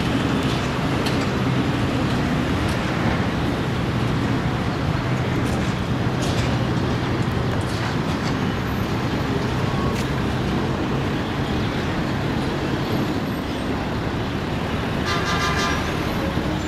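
Steady din of running engines and vehicle traffic, with a constant low engine hum underneath. A brief high-pitched tone sounds about fifteen seconds in.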